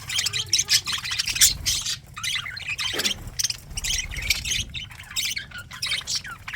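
Budgerigars chattering and squawking, a dense run of short, overlapping chirps.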